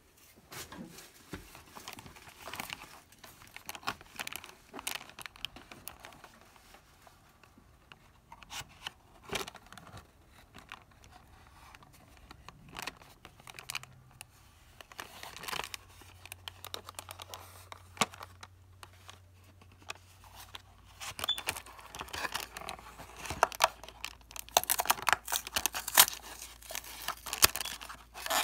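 Cardboard candy boxes with clear plastic windows being handled: scattered crinkles, taps and scrapes of packaging, growing busier and louder in the last few seconds as a glued cardboard end flap is pried and torn open.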